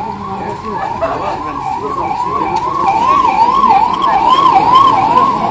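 An electronic siren warbling, its pitch swinging up and down about three times a second, growing louder toward the end.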